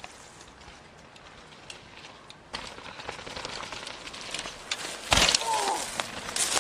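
Mountain bike tyres rolling and crunching over a rough dirt trail, with a loud rush about five seconds in as a rider passes close, followed by a short voice.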